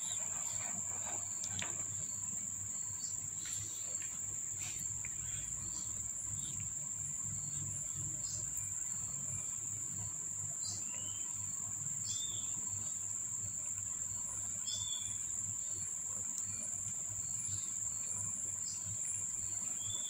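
Steady high-pitched insect chirring, with a few short chirps now and then.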